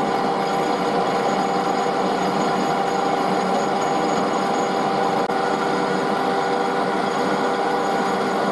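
Metal lathe running at about 755 rpm, its spindle and chuck turning a metal bar while a grooving tool cuts a groove into it: a steady machine noise with a few held tones, unchanging throughout.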